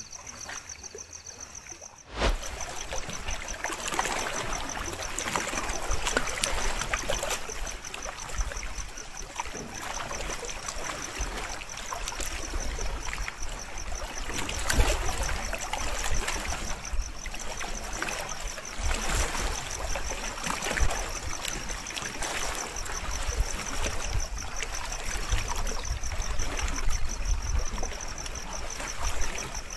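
Lake water lapping and splashing at the shore, with an uneven low rumble and a steady, fast-pulsing high trill like night insects. Everything gets suddenly louder at a cut about two seconds in.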